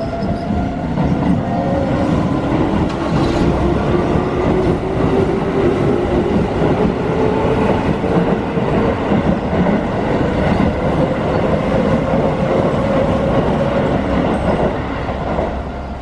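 Keio Line commuter train passing over a level crossing, wheels clattering on the rails, with a motor whine that rises slowly as the train accelerates. The crossing's warning bell keeps ringing, and the train noise falls away near the end.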